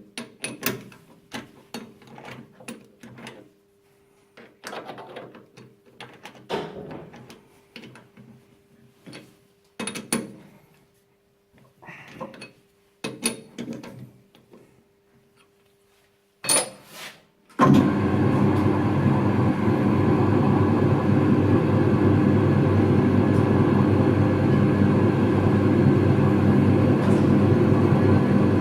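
Scattered clicks and knocks of tools and metal parts being handled, then about two-thirds of the way through a power drill starts abruptly and runs loud and steady.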